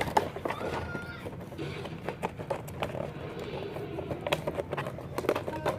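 Cartoon soundtrack sound effects: a run of scattered clicks and knocks over a low steady hum, with a brief whistle-like tone about a second in.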